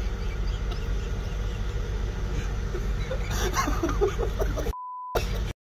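Steady low rumble of a vehicle's idling engine heard from inside the cab, with a few brief voice sounds near the end. A short steady beep cuts in about three-quarters of the way through with the rest of the sound muted, a censor bleep over a word.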